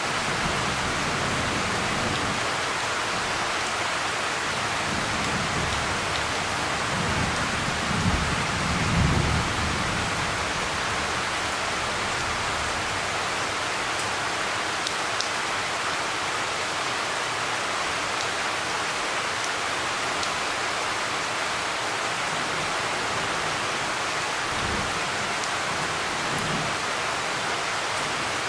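Steady rain falling, an even hiss throughout. A low rumble of thunder swells about eight seconds in, and fainter rumbles come near the end.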